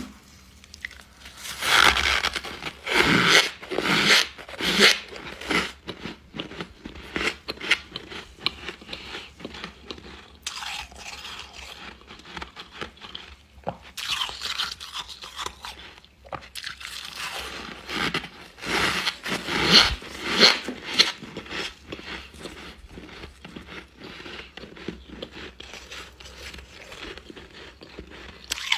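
Refrozen freezer frost being bitten and chewed, dense crunching in loud clusters with quieter chewing between.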